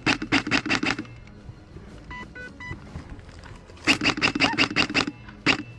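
Airsoft gun firing bursts on full auto, about eight shots a second. One burst in the first second, a longer one about four seconds in, and another starting near the end. Faint electronic beeps fall between the bursts.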